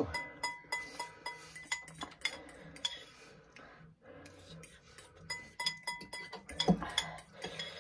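Metal spoon and fork clinking and scraping against ceramic bowls while eating ramen, a string of short irregular clicks.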